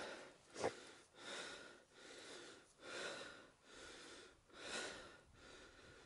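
A person breathing in and out close to the microphone, a breath roughly every second, with one sharper, louder breath near the start.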